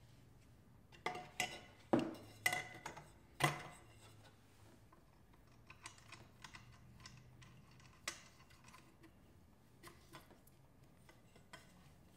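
Hard clicks and knocks from handling an air filter element and fitting the airbox cover on a garden tractor's engine. About five sharp knocks come close together in the first few seconds, then lighter, scattered clicks follow.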